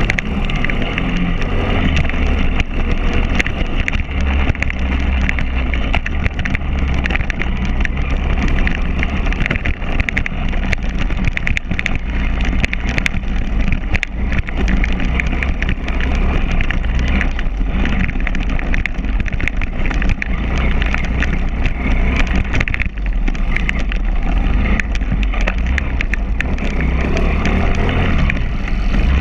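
Pit bike's single-cylinder four-stroke engine running under way over a rough dirt track, with constant clattering and knocking as the bike rides the bumps.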